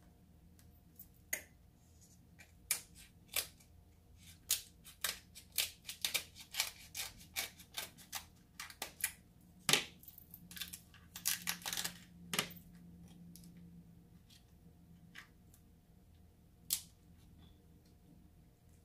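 King crab leg shells being cracked and snapped apart by hand: a long run of sharp snaps and crackles, densest in the middle, then a single crack near the end.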